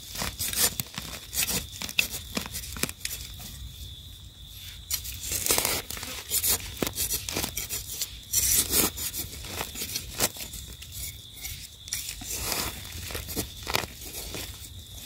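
Dry leaf litter and soil crackling and scraping as termite mushrooms are dug out with a blade and pulled up by hand. It comes as irregular short crackles and scrapes throughout, with a faint steady high tone under them.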